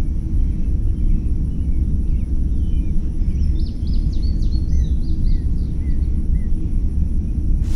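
A steady low rumble, with songbirds chirping a run of short, repeated notes through the middle and a thin, steady high tone above.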